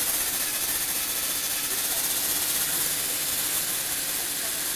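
Lego Technic electric motor driving the gear train of a scissor-lift platform, a steady high whir as the lift raises and tilts a model car.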